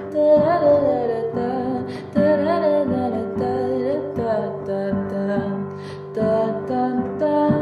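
Closing song: acoustic guitar under a woman's sung melody.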